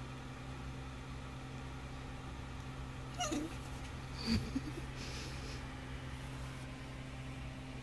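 A small Chihuahua-type dog gives two short high-pitched whines, the first falling in pitch about three seconds in and the second with a brief sharp edge just after four seconds, over a steady low background hum.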